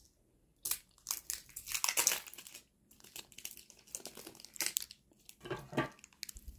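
Plastic wrapping crinkling and rustling in irregular bursts as individually wrapped cheese slices are unwrapped.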